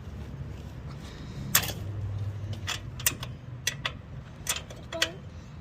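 Hand tools and bike parts being handled: about half a dozen sharp, irregularly spaced metallic clicks and knocks, over a steady low hum.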